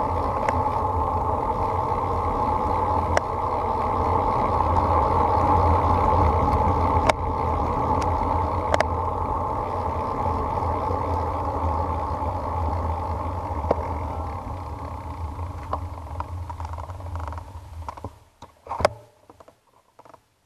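Wind rushing over an action camera's microphone and road-bike tyres rolling on asphalt make a steady noise. It fades away as the bike slows to a stop near the end, followed by one sharp click.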